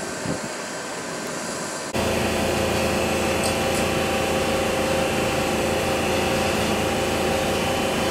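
Steady mechanical hum of railway station ambience, a drone with several steady tones under an even noise. It becomes suddenly louder and deeper about two seconds in.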